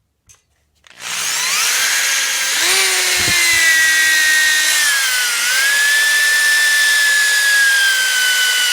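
Electric drill running at speed, boring a hole through an old golf ball. Its whine starts about a second in and sags slowly in pitch as the bit bites, with a short dip in the middle.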